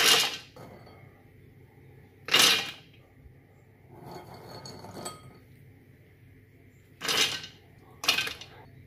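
Handfuls of whole almonds dropped into a Thermomix's stainless-steel mixing bowl, clattering against the metal four times: near the start, a couple of seconds later, and twice close together near the end.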